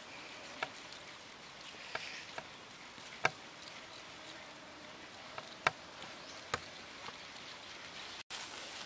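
A handful of sharp, separate clicks and taps from stirring in a coconut-shell bowl with a herb stalk, over a steady faint background of buzzing insects.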